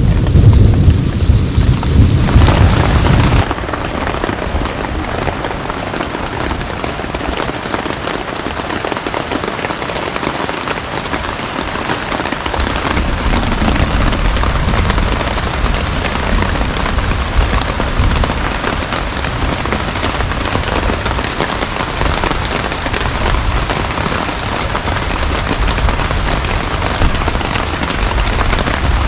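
Steady heavy rain with thunder rumbling. A loud low rumble in the first three seconds or so cuts off abruptly, leaving the even hiss of rain, with fainter low rumbles swelling up again later.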